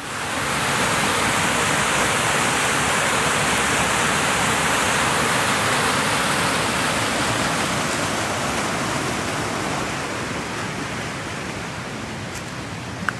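Roaring Brook's white water rushing over a small rocky waterfall: a loud, steady rush that grows gradually fainter over the last few seconds, with a brief click near the end.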